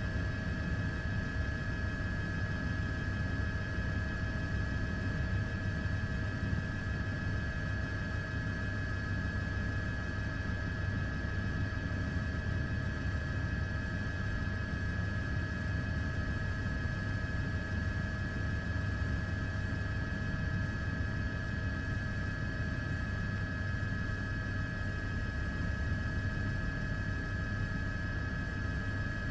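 Steady drone of the camera aircraft from inside the cabin: a low rumble with a fixed high whine over it, unchanging throughout.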